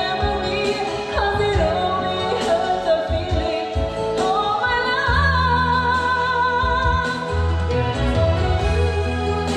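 A song playing: a singing voice holding long notes with vibrato over backing music with a steady bass.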